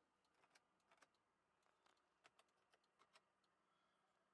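Near silence, with faint scattered light clicks.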